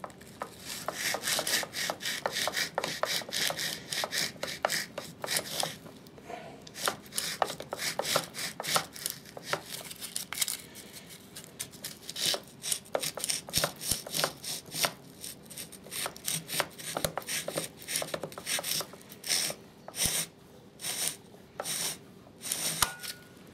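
Wet-and-dry abrasive paper rubbed against the copper commutator of an electric chainsaw motor in quick, irregular scratchy strokes with a few short pauses, cleaning the commutator surface where the carbon brushes ride.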